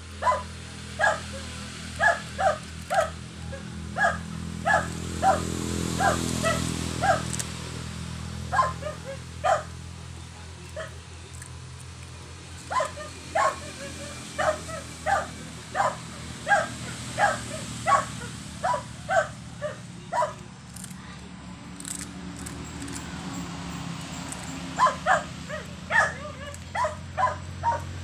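A dog barking repeatedly, about two short barks a second, in runs broken by pauses, over a low steady hum.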